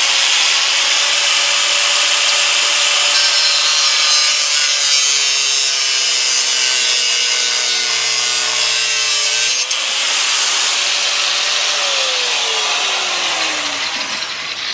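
Makita angle grinder with a cut-off disc cutting through the steel frame of a utility cart. Its motor whine sags while the disc bears down in the middle, then winds down near the end as it is switched off.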